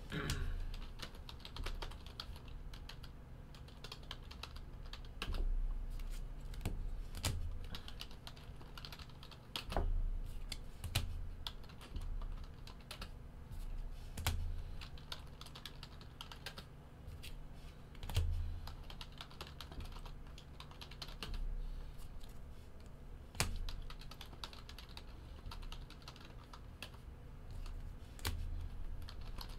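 Typing on a computer keyboard: uneven runs of quick keystrokes with short pauses between them, and a few heavier low knocks every few seconds.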